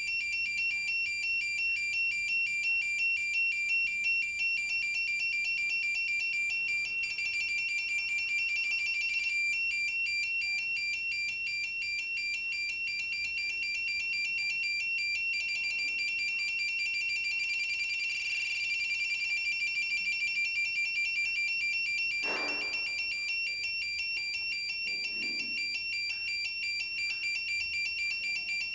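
Electronic signal-transmission sound effect: two high tones sounding together, beeping in a fast, even pulse without a break.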